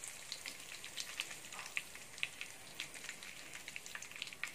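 Chicken pieces frying in butter and oil in a wok: a faint, steady sizzle with scattered crackling pops.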